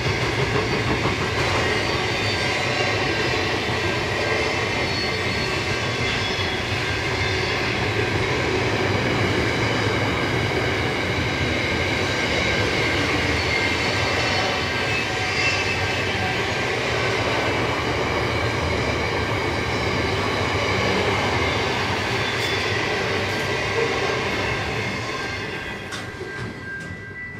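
Diesel train passing on the grade: engine drone and wheel-on-rail noise with a steady high-pitched ring, fading away near the end.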